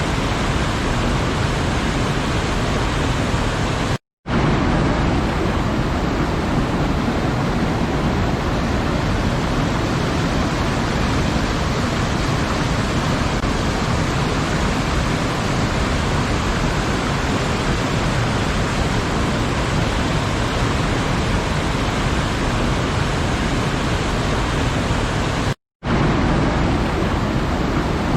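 Waterfall rushing steadily, a dense even roar of falling water, which cuts out to silence for a split second twice, about four seconds in and again near the end.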